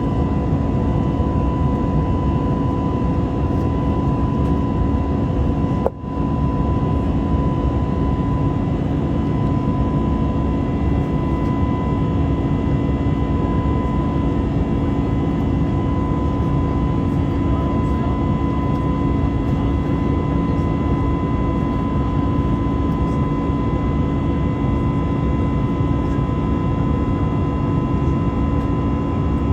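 Steady jet engine noise from an Airbus A320neo, heard from inside the cabin: an even roar with a steady whine on top. About six seconds in there is a brief dropout.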